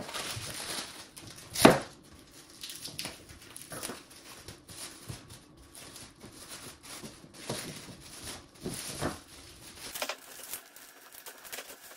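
Clear plastic wrapping crinkling and rustling as it is pulled off a coiled EV charging cable, with scattered light clicks and one sharp knock about two seconds in.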